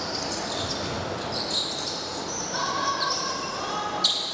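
A basketball bouncing on a hardwood gym court, a few separate thuds, with short high squeaks of sneakers on the floor.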